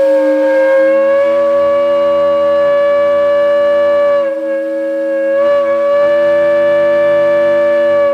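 Steam-blown gong whistle, the kind once used as a factory shop whistle for shift changes, sounding a long, loud, steady chord of several tones. Its sound weakens briefly a little past four seconds in, then holds steady again.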